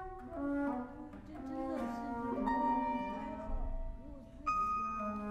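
Contemporary chamber ensemble playing live, with flute, violin and cello in overlapping, shifting notes. A new high held note comes in sharply about four and a half seconds in.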